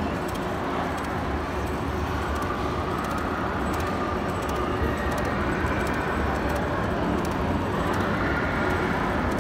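Steady background din of a busy indoor arcade, with no single sound standing out; it grows slightly louder about halfway through.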